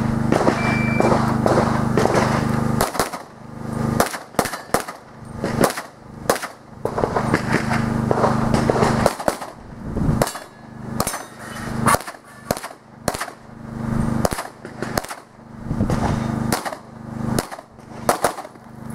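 A shot timer's short start beep about a second in, then from about three seconds a competitor's pistol firing in quick pairs and strings of shots with short pauses between them.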